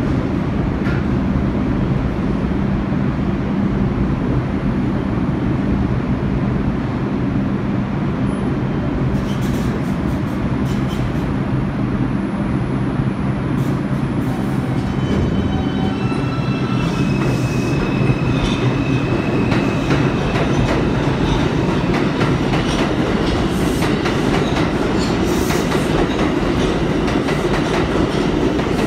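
New York City subway train running through the station: a steady loud rumble with the wheels clicking over the rails. About halfway through, an electric whine rises in steps.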